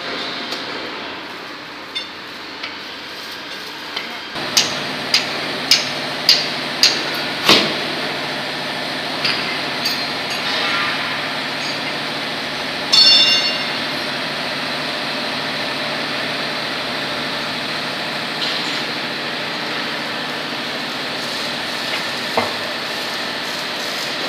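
Hydraulic deep-drawing press working on a stainless steel bowl: a steady hum comes in about four seconds in, with a run of sharp clicks about two a second just after it. A short rattling clank follows around the middle.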